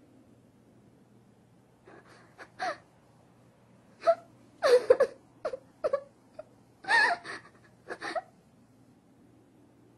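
A girl crying in short, broken sobs and whimpers, about half a dozen in a row with pauses between them, as voiced for an anime.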